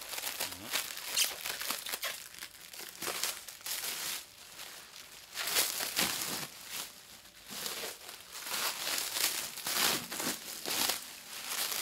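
Clear plastic wrapping crinkling and rustling in irregular bursts as it is pulled and peeled off a steel tongue drum.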